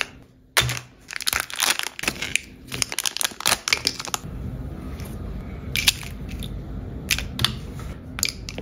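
Plastic packaging bags crinkling and rustling as they are handled and opened, in quick crackly bursts for the first few seconds. After that comes a steady low hum with a few sharp clicks.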